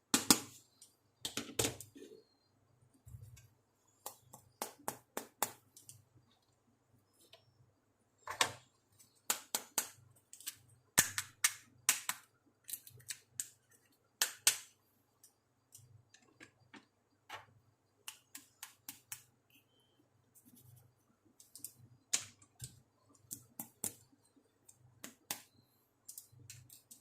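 Small plastic pieces of a toy makeup kit clicking and tapping as they are handled, in short runs of quick clicks with pauses between them.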